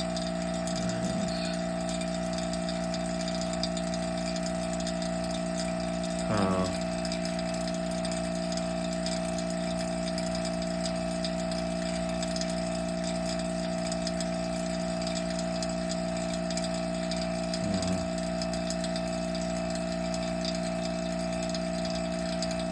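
Vacuum pump running with a steady hum and an even low pulsing as it pulls a deep vacuum on a chamber. Three brief sounds rise over it: about a second in, around six and a half seconds in, and near eighteen seconds.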